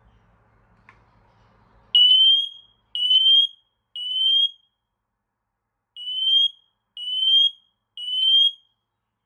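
Smoke alarm sounding during its test: two sets of three loud, high-pitched beeps with a pause between them, the temporal-three alarm pattern, each beep rising slightly in pitch. A faint click comes about a second before the first beep.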